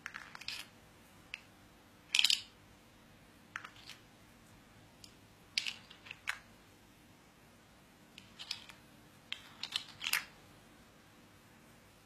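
Plastic pieces of a parrot's puzzle toy clicking and clattering as the bird beaks and pushes coloured discs out of their square tiles. The sharp clicks come in irregular clusters, the loudest a short rattle about two seconds in.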